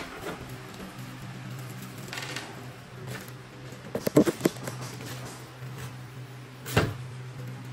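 Scattered wooden knocks and taps of cabinet work: a few sharp knocks in a quick cluster about four seconds in and a single louder knock near the end, over a steady low hum.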